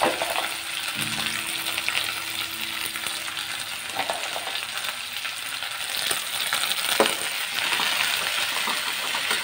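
Fresh moringa leaves sizzling in hot coconut oil in a metal pan as they are stirred with a steel spoon. The spoon scrapes and knocks against the pan a few times, the sharpest about seven seconds in.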